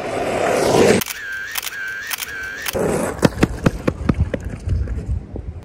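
DSLR camera shutter firing in a rapid run of sharp clicks, several a second, through the second half. Before it, a rush of noise cuts off abruptly about a second in, followed by three short identical warbling tones.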